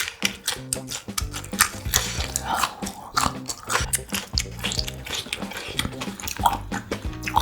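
Close-miked chewing and biting of grilled pork intestine: wet, squishy mouth sounds with many sharp clicks, over background music with a repeating bass line.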